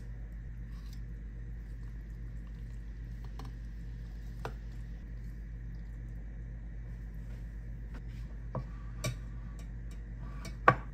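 Metal tongs and kitchenware clinking as spaghetti is lifted from a stainless steel saucepan into a ceramic bowl: a few light, scattered clicks and knocks, the sharpest near the end, over a steady low hum.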